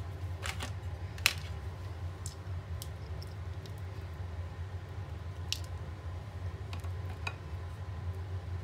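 A silicone spatula and hand-mixer beaters working in a glass bowl of soft butter and cream-cheese frosting: soft squishing and scraping with a few sharp clicks against the bowl, over a steady low hum.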